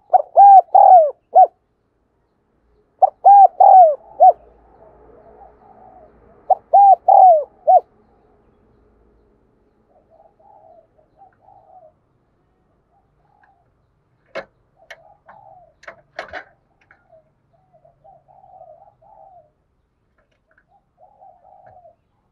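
Spotted dove cooing: three loud phrases of about four arching coos each in the first eight seconds, then softer, low cooing broken by a few sharp clicks.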